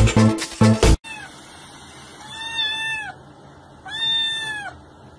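A kitten meowing twice: two drawn-out, high meows about a second and a half apart, each falling at the end. Before them, electronic dance music plays for about a second and cuts off suddenly.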